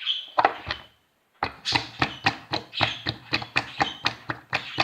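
Slime being squeezed and worked in the hands, giving a quick run of wet squelching pops and small farting noises, about four a second after a brief pause.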